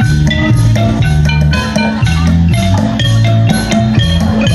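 Band music playing for a likay stage show: a melody of short, bright struck notes over a bass line that steps from note to note, with a steady beat.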